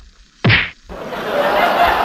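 A sharp slap of water about half a second in, then steady splashing and dripping water at the river surface as a diver moves.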